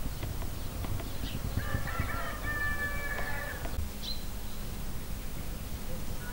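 A rooster crows once, a drawn-out call of about two seconds starting about a second and a half in, with a few short high bird chirps around it.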